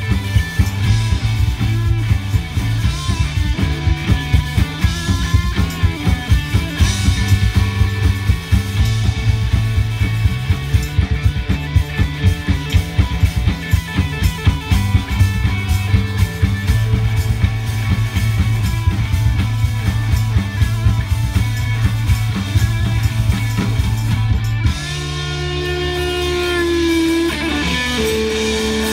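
Live rock band playing electric guitars over a drum kit with a steady driving beat. About three-quarters of the way through, the drums stop and the guitars let the final chord ring out, one note bending in pitch.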